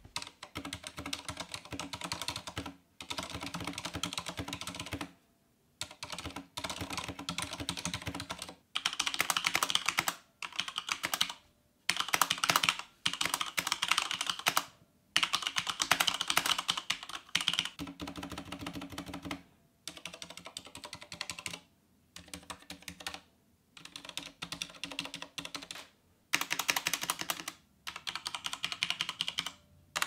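Typing sound test on a mechanical keyboard in bursts of fast key clicks with short pauses between. It starts on a WASD V3 TKL with lubricated Cherry MX Silent Red switches, soft and muted, then moves to a Corsair K65 with standard Cherry MX Red linear switches, whose typing is louder and clackier.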